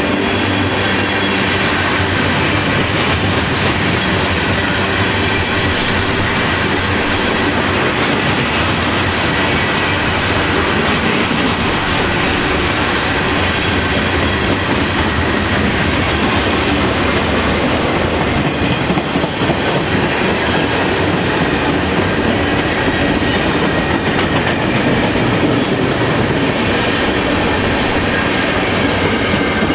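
CN freight train's cars rolling past at steady speed, wheels clacking over the rail joints in a continuous rumble.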